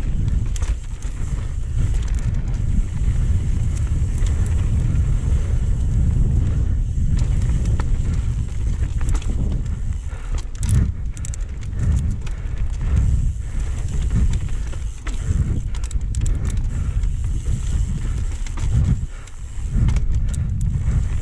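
Wind buffeting the microphone of a camera riding on a mountain bike descending a dirt singletrack, a steady low rumble. Over it come scattered clicks and rattles from the bike and its tyres rolling over loose stones and dirt.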